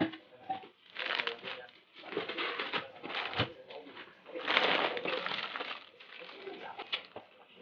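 Plastic food packaging and cardboard boxes rustling and crinkling as they are handled and set down, in several bursts with a few light knocks.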